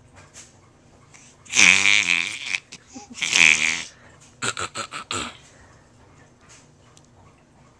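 Fake coughing: two drawn-out, voiced, cough-like sounds about a second each, followed by a quick run of about six short bursts.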